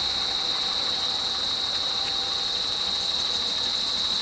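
Steady, high-pitched insect drone from the roadside scrub, unbroken throughout, with a vehicle engine idling faintly beneath it.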